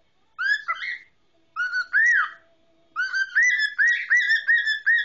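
Male cockatiel whistling his song: two short whistled phrases, then from about three seconds in a quick run of repeated up-and-down whistled notes, about three a second.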